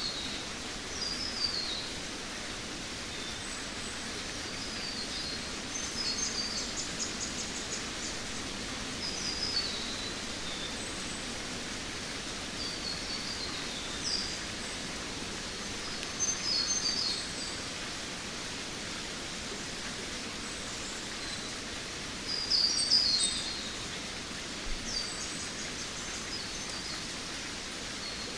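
Jungle ambience: a steady hiss of background noise, with a bird singing short phrases of quick falling notes every few seconds.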